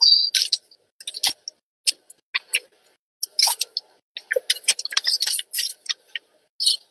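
Sheets of paper rustling and crackling as they are handled close to the microphone, in irregular spurts with short pauses.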